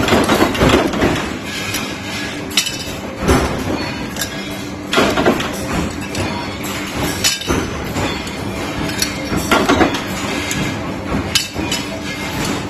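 C-frame mechanical punch press punching holes in sheet-metal muffler parts: a sharp metallic clank every couple of seconds over a steady hum, with parts clinking as they are handled.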